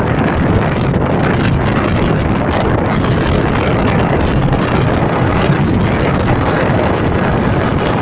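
Steady rush of wind buffeting the microphone from a moving vehicle, with the vehicle's low running rumble underneath.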